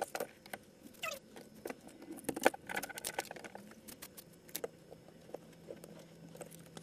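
Irregular clicks, taps and light rattles of hands handling clear plastic water-cooling tubing and a plastic reservoir cup.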